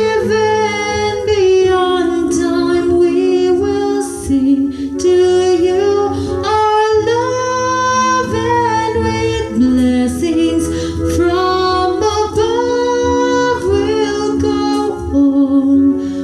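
A song: a woman singing a melody over instrumental accompaniment with a steady bass.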